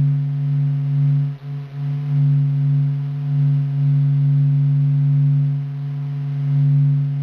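Space sound-clip of the Sun: a steady low electronic hum with a few fainter overtones that slowly swells and fades, dipping briefly about a second and a half in.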